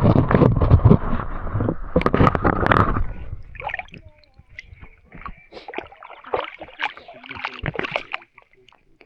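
Water splashing and sloshing close by, heavy for about three seconds and then dropping to lighter, scattered splashes, as when a dog wades or swims in lake water.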